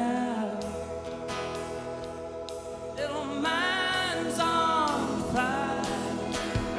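Live band music: acoustic and electric guitars and keyboard, with several voices singing long held notes in harmony.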